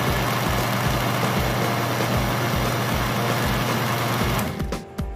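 Electric countertop blender running at speed, blending milk, ice and banana into a milkshake: a loud steady whirr over a low motor hum. It stops abruptly about four seconds in.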